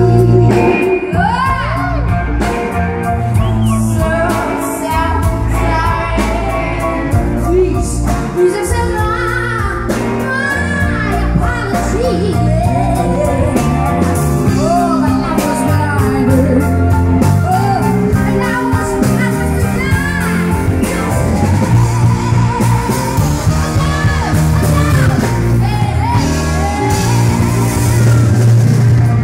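A woman singing live into a microphone over a band with electric guitar, a moving bass line and a steady beat.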